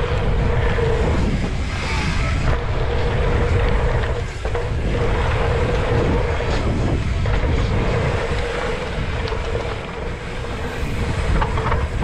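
Wind rushing over a helmet camera's microphone as a dirt jump bike rides fast through a line of packed-dirt jumps, with the tyres rolling on the dirt and a faint steady whistle through most of it.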